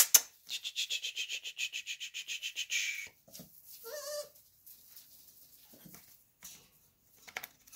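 American Bully puppy whining: a long, high, trembling squeal lasting about two and a half seconds that slides down at the end, then a shorter wavering whimper about four seconds in, followed by a few faint taps.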